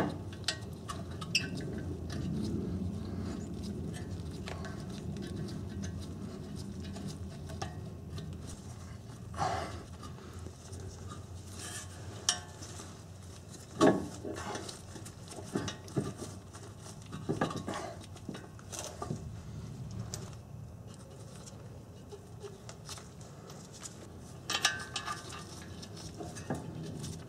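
Scattered light metallic clinks and taps as the hub bearing assembly's bolts are handled and started by hand through the steering knuckle, over a low steady hum. The sharpest clinks come about a third of the way in, around halfway, and again near the end.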